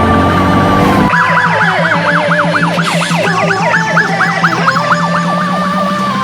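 Fire engine's electronic siren on a code 3 response, holding a steady tone and then switching about a second in to a fast yelp of about four sweeps a second. A slower sweeping siren overlaps it, and a steady low hum runs underneath.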